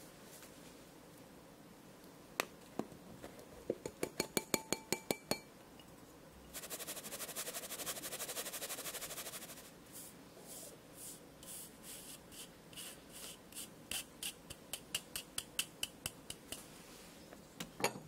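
A sieve sifting flour and cocoa powder into a stainless steel mixing bowl. It goes as a run of quick taps, then a few seconds of fast steady rattling as it is shaken, then slower repeated tapping, and ends with one louder knock.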